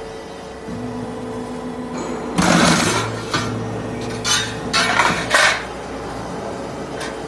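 Roll forming machine's motor hums on about a second in, then a run of loud metallic clanks and rattles of steel roofing sheet in the rollers, in four or five bursts over about three seconds.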